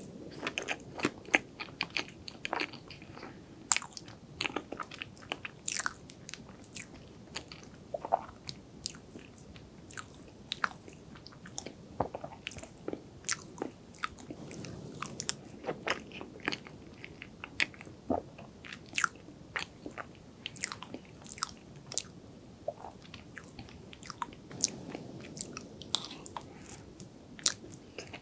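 Close-miked eating of dense chocolate cream-cheese cake: moist chewing with many sharp, irregular wet clicks and lip smacks, several a second.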